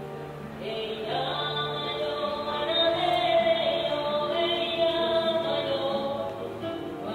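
Background music with long held, choir-like notes, growing louder about a second in.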